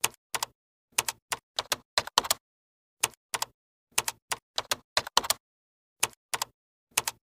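Typing sound effect: sharp keystroke clicks in quick, uneven runs, about four a second, with dead silence between the runs.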